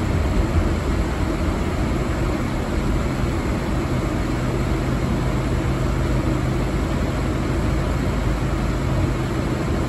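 Steady in-cabin noise of a car driving slowly in traffic: a low engine and road hum with tyre noise on a wet road.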